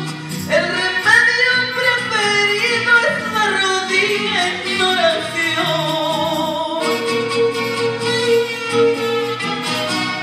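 A woman singing a Spanish-language Christian praise song over instrumental accompaniment, her melody wavering with vibrato and settling into a long held note in the second half.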